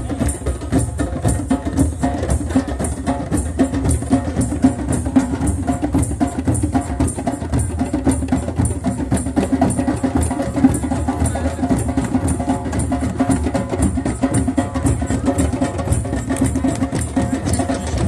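Hand drums played together in a fast, steady rhythm, several strikes a second.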